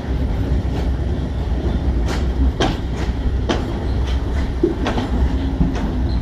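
Passenger train rolling along the track: a steady low rumble from the wheels, with a handful of sharp clacks at uneven spacing as the wheels pass over rail joints.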